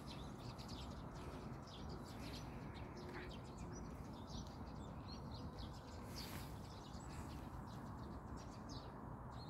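Faint small birds chirping, many short, scattered high calls, over a steady low outdoor background rumble.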